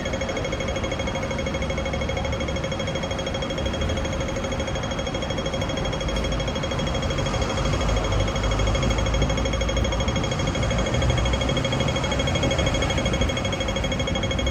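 A steady electronic alarm-like tone, rapidly pulsing and sounding at several pitches at once, over the constant noise of a busy street.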